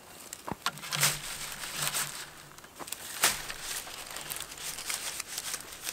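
Stiff burrawang fronds rustling and scratching against each other and the stick frame as they are laid onto a bush shelter, with several sharp crackles, the loudest about a second in and again about three seconds in.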